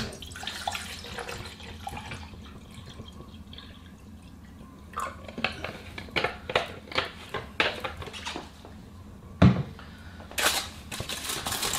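Water pouring from a bottle into a steel camping mug for the first few seconds, then a run of light clicks and taps, a single thump about nine and a half seconds in, and aluminium foil crinkling near the end.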